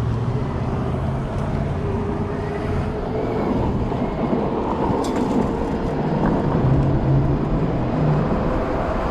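Steady city traffic and road noise heard from a moving e-bike, with the low hum of nearby motor vehicles swelling for a few seconds past the middle.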